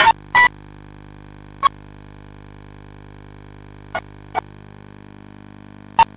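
Steady electrical mains hum, broken by about half a dozen short, sharp crackles at irregular moments.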